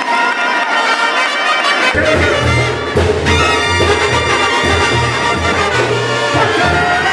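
Brass band music in the Mexican banda style: trumpets and trombones play a melody, and a low bass line comes in about two seconds in, pulsing on a steady beat.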